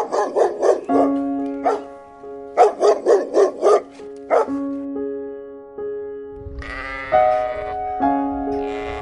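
Animal calls over background music with sustained notes: two quick runs of sharp repeated calls, about five a second, in the first half, then a long bleat-like call from about two-thirds of the way in.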